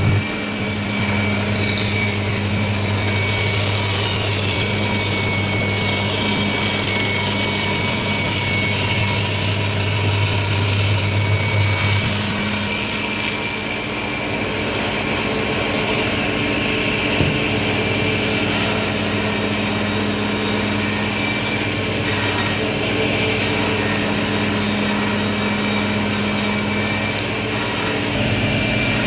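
Table saw driven by an induction motor, running steadily with a low hum. The hum weakens about twelve seconds in, and there is a single short click later on.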